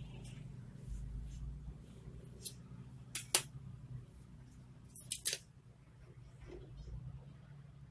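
Sharp plastic clicks and taps from laptop parts being handled during disassembly: one click about two and a half seconds in, a louder pair just after three seconds, and a quick cluster around five seconds, over a low steady hum.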